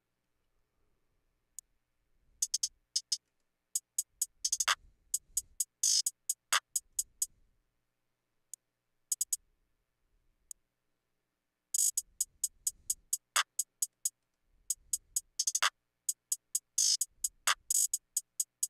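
Programmed trap hi-hat pattern played back from a sampler in Logic Pro X: quick closed-hat hits in fast rolls and runs, with a few hits pitched far down so they slide lower. Midway there is a pause of a few seconds with only scattered single hits before the pattern starts again.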